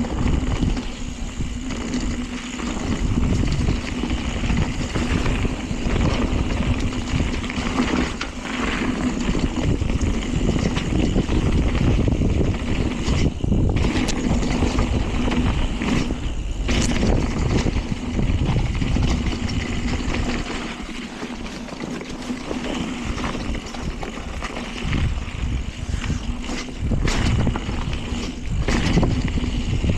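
Mountain bike being ridden along a rough trail: steady wind on the microphone and tyre rumble, with scattered knocks and rattles from the bike over bumps.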